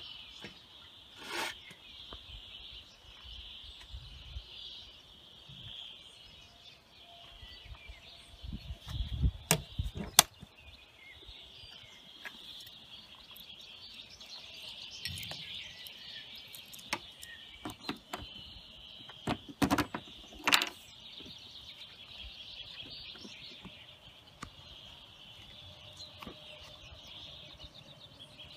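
Sharp plastic clicks and knocks of a scooter's top case and seat lid and latches being handled, the loudest about a third and two-thirds of the way through, over steady high bird chirping.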